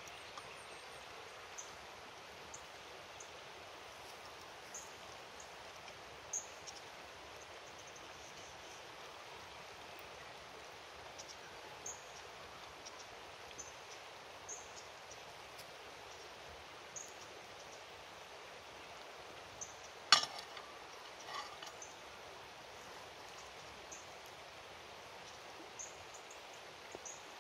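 Faint steady outdoor hiss, with scattered light clicks of a spoon and tongs against a frying pan and plate as prawns and rice are served. A single sharp clack comes about two-thirds of the way through, followed by a few softer clinks.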